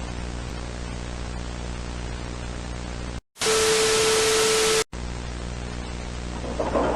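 Steady electrical buzzing hum with hiss, like a degraded analog broadcast. About three seconds in, the sound drops out and a loud burst of static with a steady tone runs for about a second and a half, then cuts off sharply back to the hum. Near the end the rumble of a train starts to rise over it.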